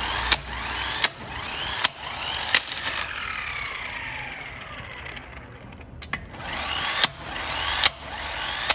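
Car-battery-powered electric impact wrench with a socket working a wheel nut loose: a whirring run broken by sharp metallic impacts about every three-quarters of a second, with a gap in the impacts around the middle before they start again.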